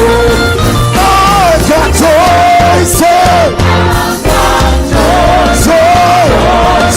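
Live gospel praise-and-worship music: a singer and choir over a full band with bass and drums.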